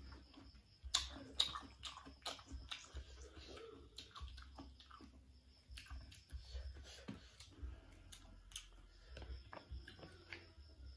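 A person chewing crunchy unripe fruit (young pineapple and young mango) with the mouth close to the microphone: irregular soft crunches and wet mouth clicks, a little louder about a second in.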